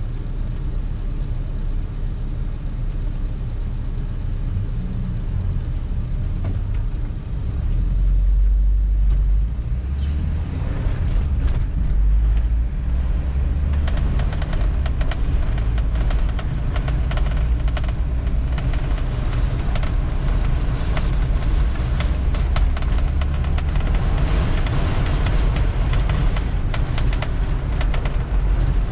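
Car cabin noise: the engine and tyres rumble steadily, growing louder about eight seconds in as the car pulls away and picks up speed. Through the second half, scattered ticks of rain hit the car.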